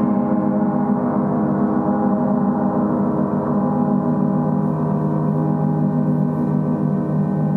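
Several gongs ringing together in a sustained wash of many overlapping tones, strongest and deepest in the low range, held steady with no separate strikes standing out.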